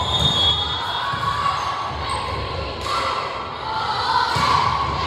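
Volleyball being hit, with a few thuds, over the chatter and cheering of a gym crowd.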